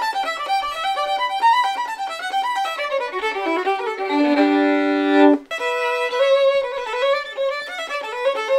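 Solo violin played as a fiddle: a quick tune of fast running notes, with a held double stop about four seconds in, a short break, then the run picks up again. The instrument's bridge is flat and needs recarving, which makes clean string crossings hard.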